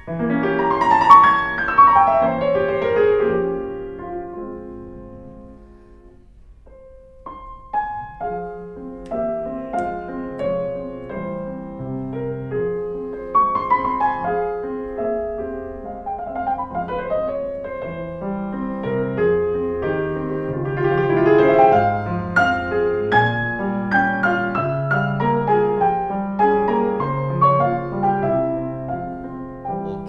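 Steinway grand piano played in a classical passage: a descending run that dies away a few seconds in, then after a brief pause the playing resumes and runs on, a melody over a steady accompaniment.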